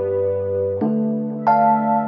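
Background music: slow, sustained electric-piano chords, changing a little under a second in, with higher notes joining soon after.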